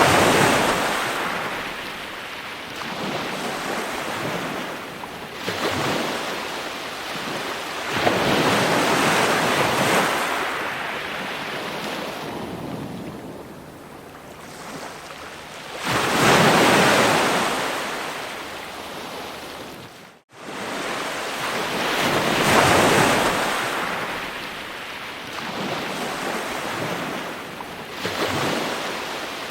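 Ocean waves breaking on a shore: a broad rushing surf that swells and recedes every few seconds as each wave comes in. About two-thirds of the way through, the sound cuts out for a split second.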